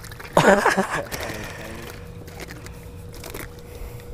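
A short loud exclamation from a man about half a second in, then faint rustling and handling sounds over a thin steady hum.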